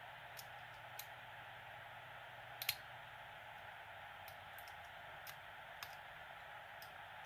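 Faint, irregular metallic clicks from a hook pick and tension wrench working the pins of a pin-tumbler lock, about eight in all, the loudest a quick double click about two and a half seconds in, over a steady hiss.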